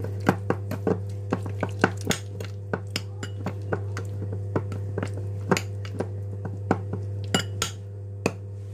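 Metal spoon clinking and scraping against a small glass bowl while stirring cream cheese filling, in irregular sharp clinks a few times a second, over a steady low hum.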